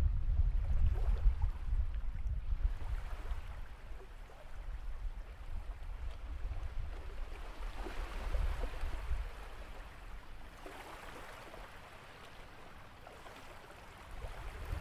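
Sea waves washing onto a beach, with wind rumbling on the microphone, strongest in the first few seconds. A wave swells and washes in about eight seconds in, and another a few seconds later.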